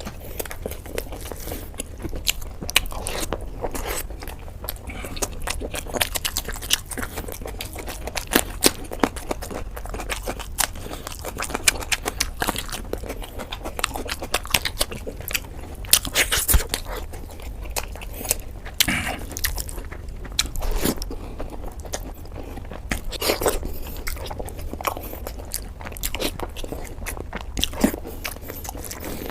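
Close-miked chewing and biting of food, with irregular wet clicks and crunches from the mouth, over a steady low hum.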